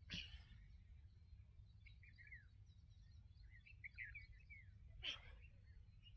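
Near silence with faint birds chirping in short, falling notes, mostly between two and four seconds in, over a low steady outdoor rumble. Two brief soft noises come at the very start and about five seconds in.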